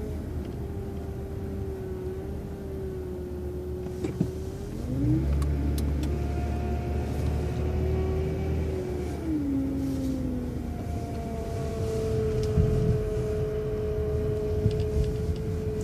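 City transit bus engine and drivetrain running, with a whine that rises as the bus pulls ahead about five seconds in and falls again around nine seconds as it eases off, then stays steady.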